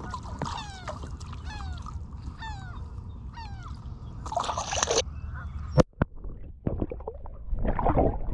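A bird calling over and over, short falling notes a few to the second, through the first half. After that comes a brief rushing splash-like noise, a sharp knock, and more rushing noise near the end.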